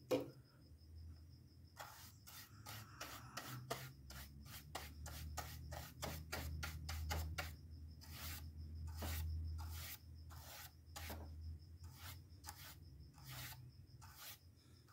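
Bristle paintbrush stroking acetone onto the cardboard back of a toy-car blister card: faint, repeated short brush strokes, about two or three a second, starting about two seconds in.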